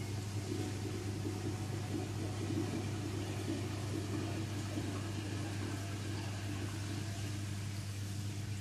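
Steady low hum with a wash of running water, typical of a reef aquarium's pumps and water circulation running.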